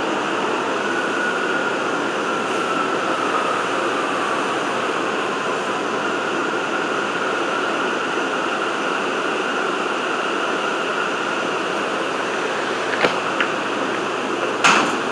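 Interior of an R179 subway car running along elevated track: a steady rumble and hiss of wheels on rail, with a faint whine slowly falling in pitch over the first few seconds. A few sharp clacks come near the end.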